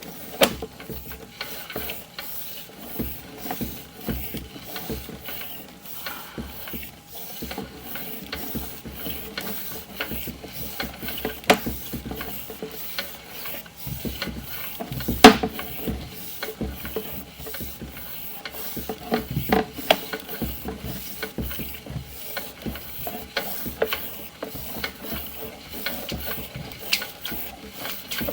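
Sewer inspection camera's push cable being fed down the line: irregular clicking and rattling from the cable and reel, with one louder knock about fifteen seconds in.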